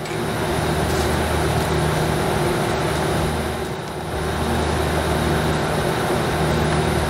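35-ton package air-conditioning unit running, a steady mechanical drone with a low hum, dipping briefly about four seconds in.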